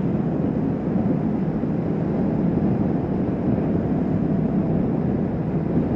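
Steady rush of wind and road noise from a Kawasaki Vulcan S 650 motorcycle cruising at highway speed, unchanging throughout with no distinct engine note standing out.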